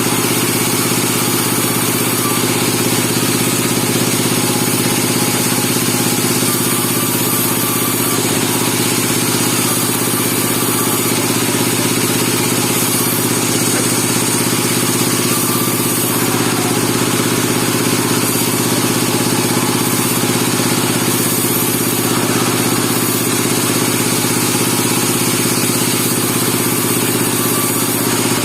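Engine of a bandsaw sawmill running steadily, with unchanging loud machine noise throughout.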